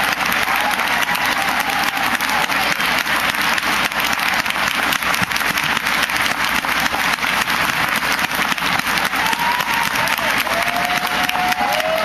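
Large audience applauding steadily: dense, continuous clapping.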